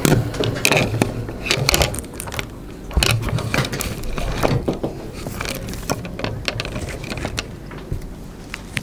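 Irregular clicks, knocks and rustles of objects being handled at a lectern, over a low steady hum.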